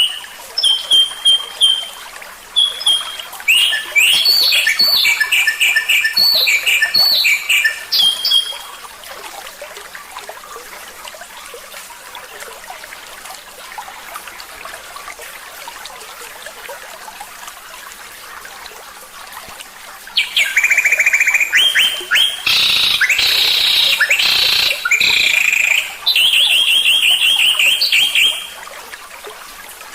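Songbird song: rapid repeated whistles, chips and trills in two bouts, separated by a pause of about ten seconds that begins some eight seconds in.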